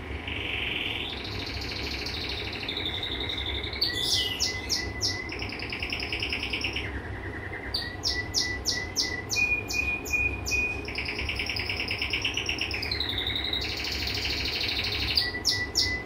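Male red mosaic canary singing a long, varied song: fast trills, buzzy rolls and runs of short whistled notes, one phrase after another without a break.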